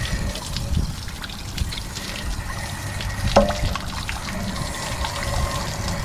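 Water splashing and pouring out of the anode-rod port of a Suburban RV water heater tank while a flushing wand rinses the inside, washing out mineral deposits. One sharp knock about halfway through.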